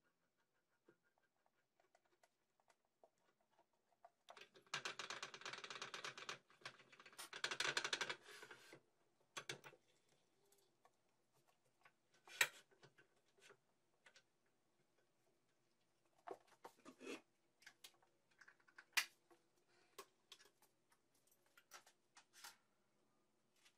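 Quiet clicking and rattling: two bursts of rapid clicking a few seconds long about a third of the way in, then scattered single sharp clicks.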